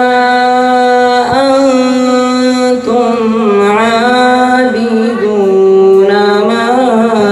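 A boy's voice reciting the Quran in melodic tajweed style. He draws out long held notes with wavering ornaments and breaks briefly for breath about one and three seconds in.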